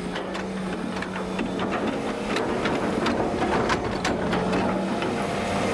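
Excavator engine running steadily at work as it digs, with irregular clanks and knocks from the bucket and machinery.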